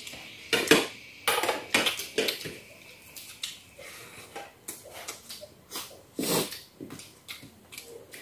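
Several people eating from plates and bowls: metal spoons clinking and scraping on the dishes, with chewing and lip-smacking, in irregular short clicks and a few longer scrapes, the loudest about half a second in and again about six seconds in.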